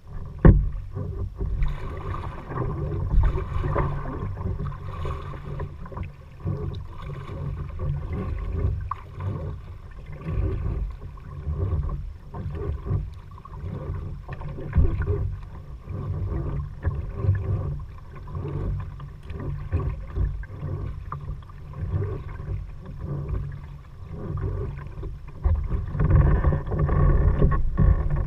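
Kayak being paddled, the paddle strokes swishing and splashing in the water in an uneven rhythm every second or two, over a low rumbling noise. A sharp knock right at the start.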